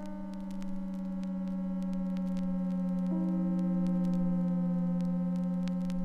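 Music: a steady low electronic drone with held higher tones above it, swelling a little over the first second; the upper notes shift to a new chord about three seconds in.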